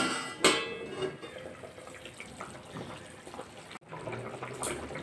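A steel plate used as a lid clanks against the wok about half a second in, then the curry gravy simmers with a soft, wet bubbling.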